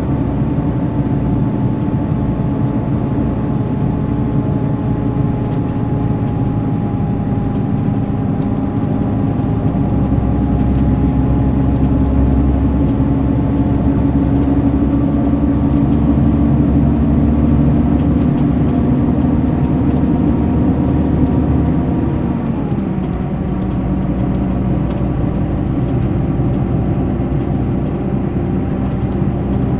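Mercedes-Benz O500 RSD BlueTec5 coach's diesel engine running steadily under way. The engine note drops suddenly about 22 seconds in.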